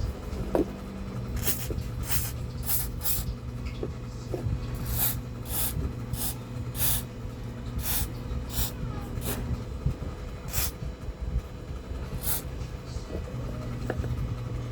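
WD-40 aerosol can spraying a circuit board in a series of short, irregular hissing squirts, about fifteen in all, over a steady low background hum.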